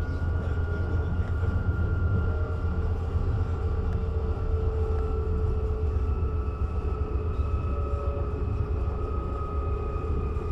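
Bombardier/Alstom ET 422 S-Bahn electric multiple unit running between stations, heard from inside the car: a steady low rumble from the wheels and track, with the whine of the electric traction drive, whose tones drift slowly in pitch.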